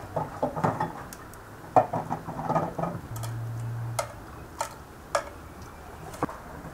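Hard-boiled egg being cracked and peeled by hand: small, sharp clicks and crackles of eggshell, with water splashing in an enamel bowl in the first few seconds. A short low hum sounds a little after the middle.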